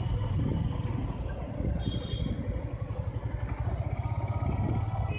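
Motorcycle engine running as the bike rolls slowly along a rough dirt road, a steady low rumble with a rapid pulse.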